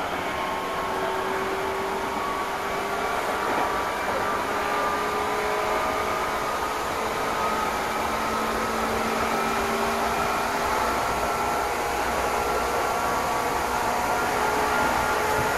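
Meitetsu express train running, heard from inside the carriage: a steady wheel-and-rail running noise with several faint whining tones that slowly rise in pitch, getting a little louder as it goes.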